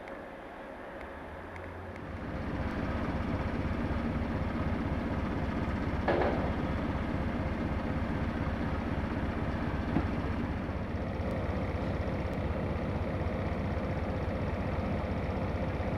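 Diesel engine of a Class 73/1 electro-diesel locomotive (English Electric four-cylinder) running with a steady low rumble, growing louder about two seconds in as it works. There is one short sharp noise about six seconds in.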